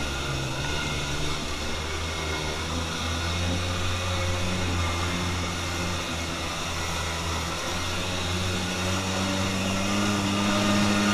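Kawasaki Jetmate jet boat's two-stroke engine running under way, with water spray and wind rushing past the hull. The engine gets louder and climbs in pitch near the end.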